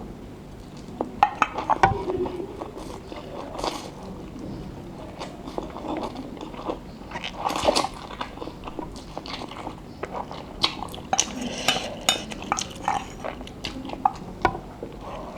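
Close-miked eating of instant noodles: utensils clinking against a bowl, with biting and chewing in between, in irregular bursts.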